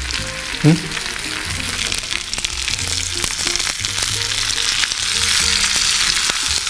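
Grated-potato pancake sizzling steadily as it fries in hot oil in a pan, with scattered small pops of spattering oil.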